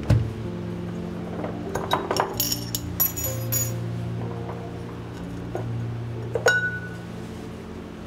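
Light clinks and taps of kitchenware being handled, some ringing briefly, over soft background music.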